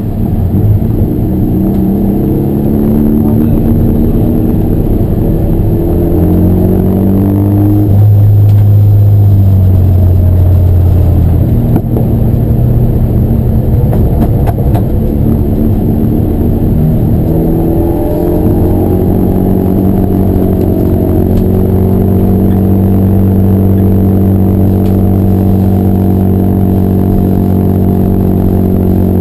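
Race car engine running at speed, its revs climbing in a few steps through the first eight seconds, then held steady. The revs climb again about eighteen seconds in and settle into a steady drone.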